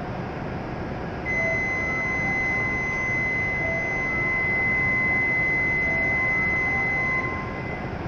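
Departure warning buzzer sounding for a standing Shinkansen train: one steady, high electronic tone that starts about a second in and stops about six seconds later, the signal that the train is about to leave. Under it a faint repeating chime and the steady hum of the standing train.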